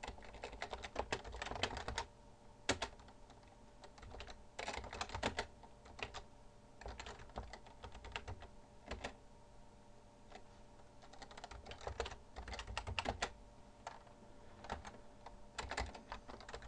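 Typing on a computer keyboard: short bursts of quick keystrokes separated by pauses of a second or two.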